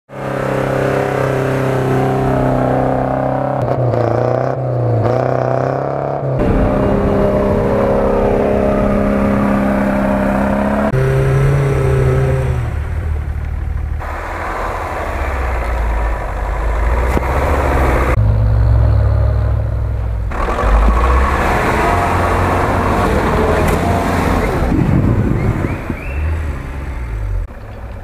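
Off-road vehicle engines running and revving, the sound changing abruptly every few seconds. In the second half a GAZ-66 truck's engine runs low and rough as it drives through deep snow.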